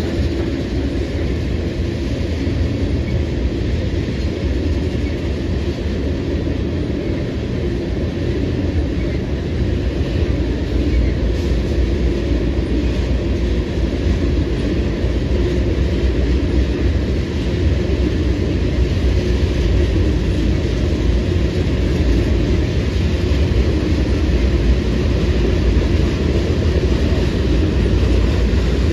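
Freight train of covered hopper cars rolling steadily past, a continuous low rumble of steel wheels on rail that grows slightly louder in the second half.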